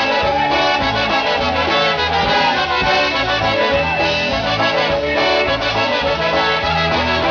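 Live polka band playing an instrumental break: two trumpets and a Chicago-style concertina carry the melody with a clarinet, over drums keeping a steady beat.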